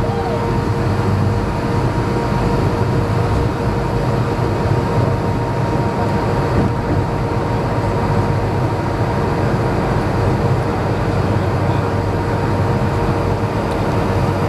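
Cabin noise of an Avro RJ100 in flight, heard through the passenger window: the steady drone of its Lycoming LF507 turbofan engines and airflow, with a low rumble and two steady whining tones.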